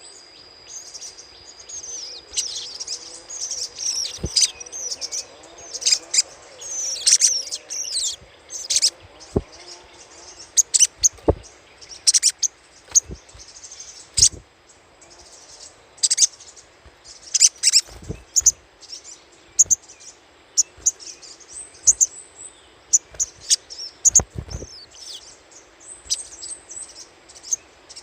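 Little spiderhunter (sogok ontong) giving its chattering call: rapid, sharp, high chips in irregular bursts. It is a lure recording, played to draw or set off other birds of the kind.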